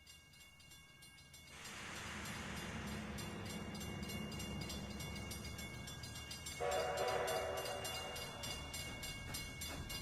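Steam locomotive approaching: a low rumble and hiss of steam set in about a second and a half in. About six and a half seconds in, its chime whistle blows one chord-like blast for about two seconds.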